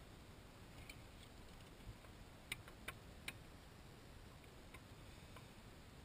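Near silence broken by a few faint, light clicks of small metal brake caliper parts being handled by hand, three sharper ones in quick succession about halfway through.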